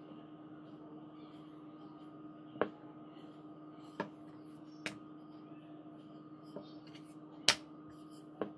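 Ribbed wooden rolling pin knocking against a wooden board while dough is rolled out: about five short, sharp knocks, the loudest near the end, over a steady low hum.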